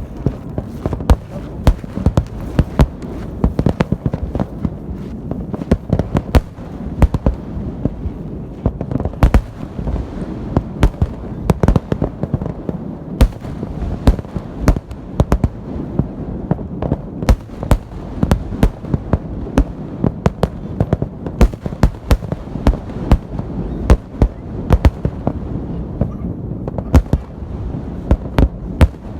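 Fireworks salute: aerial shells bursting in a rapid, continuous barrage of sharp bangs, several a second, over a steady rumble of echoing booms.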